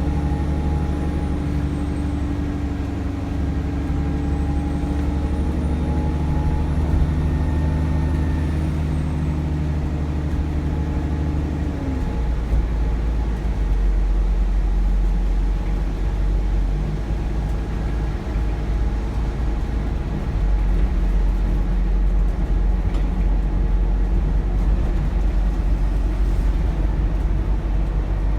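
Cummins ISBe diesel engine of an Alexander Dennis Enviro400 double-decker bus running under way, with a high turbo whistle that dips and rises again over the first several seconds. About twelve seconds in, the engine's steady droning note stops, leaving a low rumble and road noise.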